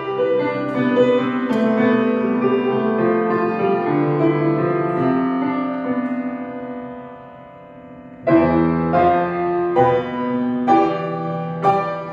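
Grand piano playing slow, sustained chords that die away to a quiet moment about eight seconds in. Then a fresh chord is struck loudly, followed by further chords about a second apart.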